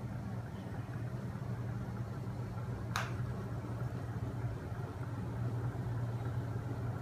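Homemade magnet motor machine running with its flywheel and crank linkage turning: a steady low hum, with one sharp click about three seconds in.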